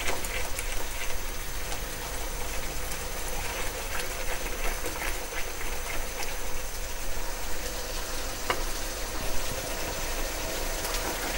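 Thick onion-and-cashew masala gravy frying in a wok, bubbling and spitting with small scattered pops, stirred with a silicone spatula until near the end. It is the masala being fried down with its spices.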